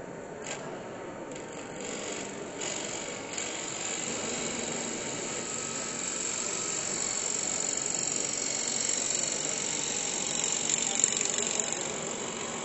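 Wood lathe turning with a gouge cutting the spinning workpiece: a continuous rasping hiss of shavings coming off. A few brief tool touches come in the first couple of seconds, then the cut runs on steadily from about three seconds in.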